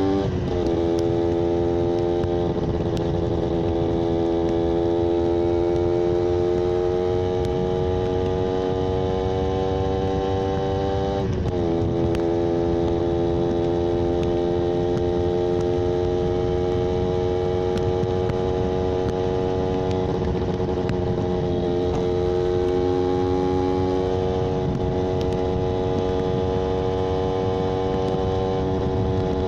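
Yamaha 125ZR's single-cylinder two-stroke engine running. Its pitch climbs slowly, drops sharply twice (near the start and about eleven seconds in), then climbs again.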